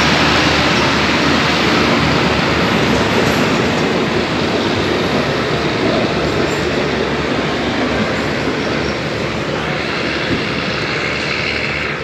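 RHN diesel railcar train pulling out of the station, its cars rolling past at close range with a steady rumble of wheels on rail that eases a little towards the end.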